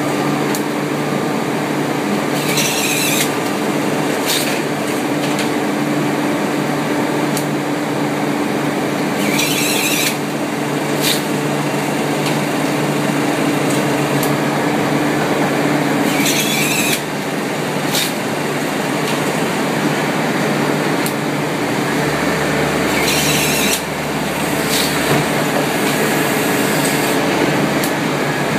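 A machine or engine running steadily with a constant hum. A short hiss breaks in about every seven seconds, four times in all.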